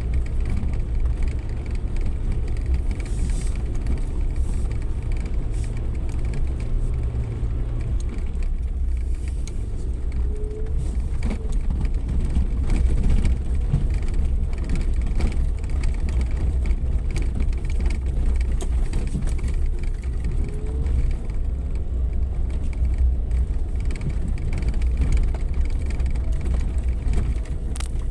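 Suzuki Jimny 4x4 driving off-road: a steady low rumble of engine and drivetrain with scattered knocks and rattles from the rough track. The engine note changes about eight seconds in.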